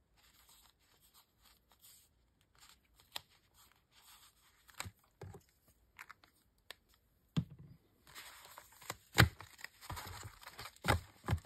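Kraft paper envelopes being handled and stacked on a cutting mat: paper rustling and sliding, busier in the second half, with a few sharp taps as they are set down.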